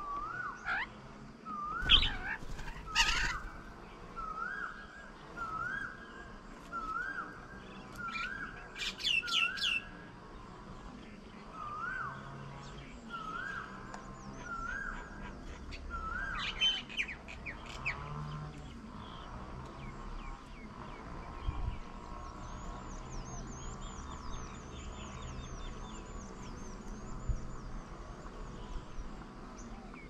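Birds calling. A rising whistled note repeats about once a second through the first sixteen seconds. Harsh chattering squawks come in around two, nine and sixteen seconds in, and faint high twittering follows in the second half.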